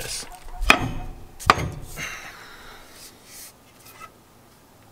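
A wooden tool handle knocking against hard surfaces: three sharp knocks in the first second and a half, then fainter handling noise.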